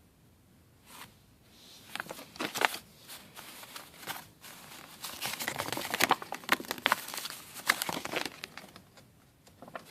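Packaging crinkling and rustling as it is handled, in irregular bursts starting about a second in, with several sharp clicks.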